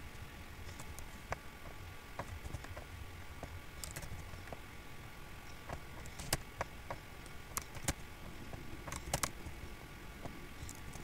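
Typing on a computer keyboard and clicking a mouse: scattered, irregular light clicks over a faint steady hum.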